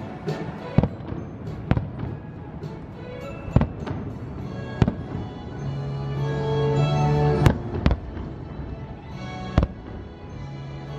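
Aerial fireworks shells bursting: about seven sharp bangs at irregular intervals, the loudest about seven and a half seconds in, over music with long held notes.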